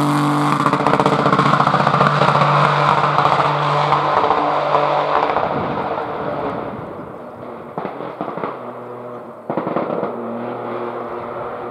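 Peugeot 208 Rally4 rally car's turbocharged three-cylinder engine pulling away and fading into the distance, with rapid crackling and popping backfires from the exhaust. A few more cracks come later, and the engine comes back louder with a sudden jump near the end.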